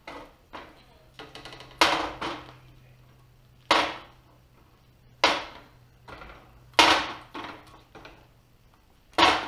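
Aluminum ATV skid plate knocking against a metal work table as it is handled and shifted. There are five loud, sharp clanks about a second and a half apart, each ringing briefly, with lighter knocks in between.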